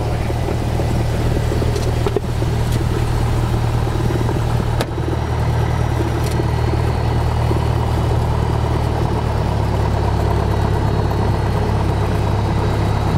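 Cessna 172's piston engine and propeller running steadily at taxi power, heard from inside the cabin, with two brief clicks about two and five seconds in.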